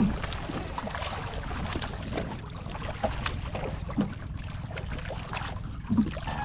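Wind buffeting the microphone over a steady low rumble of water around a small fishing boat, with a few scattered light knocks, the strongest near the start and about six seconds in.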